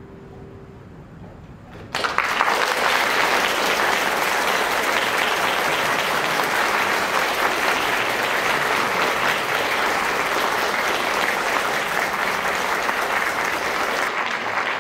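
A last held note dies away, and after a short pause an audience bursts into applause about two seconds in. The clapping then carries on steadily.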